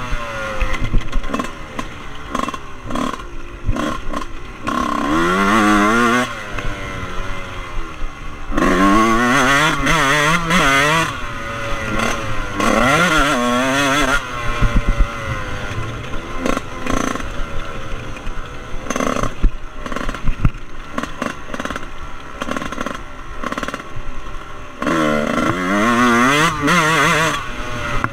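Husqvarna WR 125's two-stroke single-cylinder engine being ridden hard off-road. Its pitch climbs sharply several times as the throttle is opened, then drops back between bursts of acceleration.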